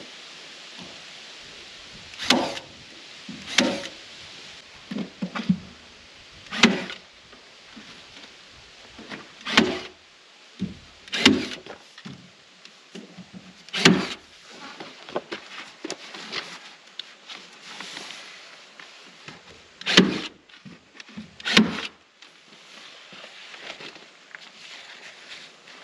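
Hammer tacker driving staples through housewrap into the wall: about ten sharp strikes at irregular intervals, one to several seconds apart.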